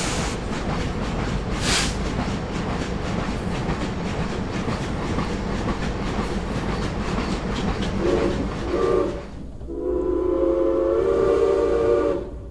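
A train passing with a steady rumble and wheel clatter. About eight seconds in its horn sounds two short blasts, then one longer blast near the end.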